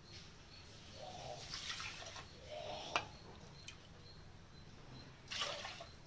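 Water poured from a cup into an aluminium pot of rice and moong dal, splashing in two pours, with a sharp knock about three seconds in.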